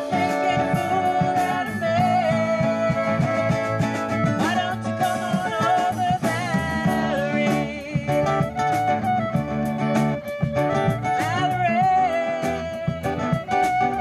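Live acoustic country-style music: strummed guitar under a sustained, wavering melody line.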